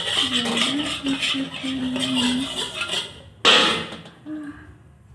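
Metal spatula scraping and stirring around an oiled wok, with one loud clank about three and a half seconds in.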